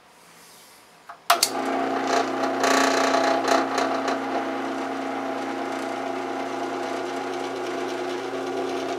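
Drill press switched on a little over a second in: its motor starts suddenly and runs with a steady hum while the oiled bit cuts into metal angle, the cutting noisiest in the first few seconds after the start.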